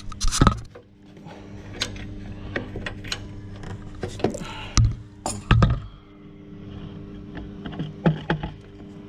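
Metal spanner and hardware clinking and knocking irregularly as a normal spanner is tried on a side-step mounting nut, with several louder knocks about halfway through.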